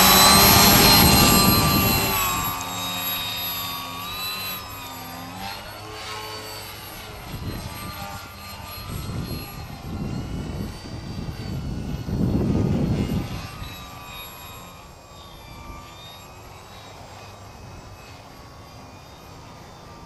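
Electric motor and propeller of a small foam electric 3D RC airplane whining, loudest at the start with the plane close by. It then grows fainter, rising and falling in pitch as the throttle changes, and swells again about twelve seconds in.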